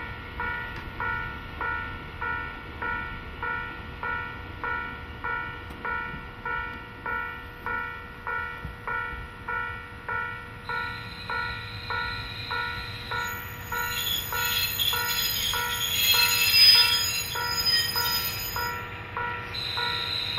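Japanese level-crossing warning bell ringing steadily at about two strokes a second. From about two-thirds of the way in, a KiHa 40-series diesel railcar comes up and runs past, with high squealing from the wheels or brakes. The train is loudest about three-quarters of the way through.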